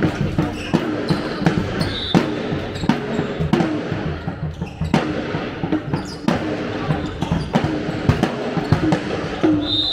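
Indoor handball play: the ball knocks on the hard hall floor again and again amid players' footsteps, with a short high squeak about two seconds in and another at the end, over voices calling and chatting, all echoing in a large hall.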